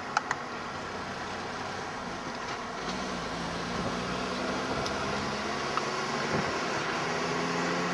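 Road and engine noise of a moving car, a steady rush with a low engine hum that becomes clearer and a little louder about three seconds in.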